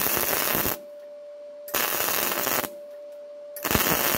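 Electric arc welding on steel in short bursts: three crackling welds of about a second each, with roughly a second's pause between them, stitch-welding the metal. A steady hum can be heard in the pauses.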